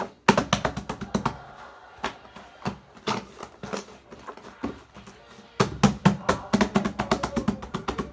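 Slime being squeezed and folded by hand, giving a run of quick wet clicks and pops that come much faster from about two-thirds of the way in.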